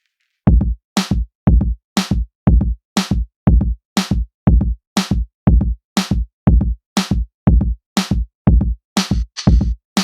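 Electronic backing music with a steady drum-machine beat, starting about half a second in after a short silence.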